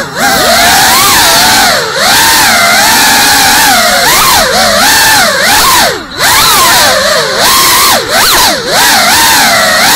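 Brushless motors and ducted propellers of a GEPRC Cinelog 35 cinewhoop FPV drone whining, the pitch rising and falling constantly as the throttle is worked, with brief dips in level, heard from the drone's onboard camera.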